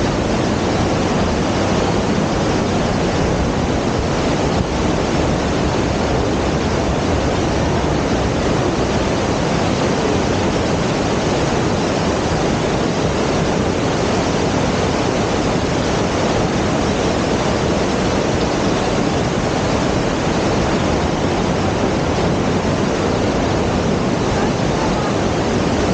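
Waterfall, a steady rushing of falling water with no change in level.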